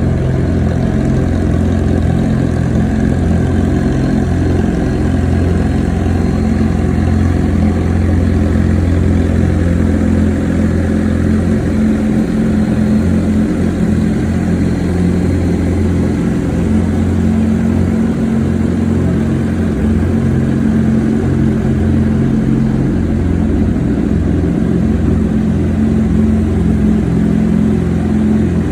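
A 600cc inline-four sport motorcycle engine idling steadily, with an even, unchanging note.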